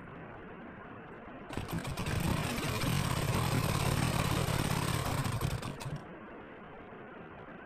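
Industrial sewing machine running steadily for about four seconds, starting about a second and a half in and stopping near the end, as it stitches through fabric.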